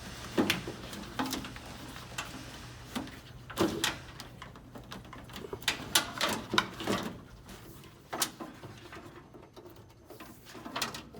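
Irregular clicks, taps and rustles of a wiring harness being handled and pressed into a car chassis's metal retaining tabs, with a cluster of sharper knocks in the middle, over a faint steady hum.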